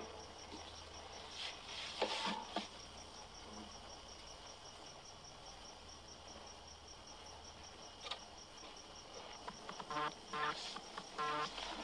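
Crickets chirping, a steady high pulse about five times a second, under a quiet room, with a short rustle about two seconds in. Near the end, acoustic guitar picking starts up again with a few soft notes.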